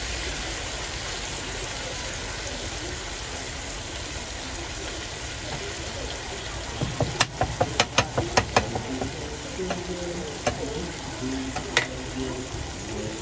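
Potatoes and bean curd sizzling on a flat iron griddle, a steady frying hiss. From about seven seconds in, a run of sharp clicks and taps of a metal spatula on the griddle.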